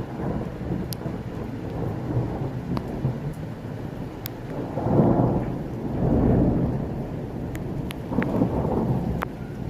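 Thunderstorm: steady rain with thunder rumbling, swelling into louder rolls about halfway through and again near the end, and scattered sharp ticks of drops striking nearby.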